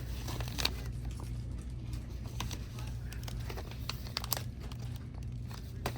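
Grocery store background: a steady low hum with scattered light clicks and crinkles, the sharpest about half a second in and near four seconds.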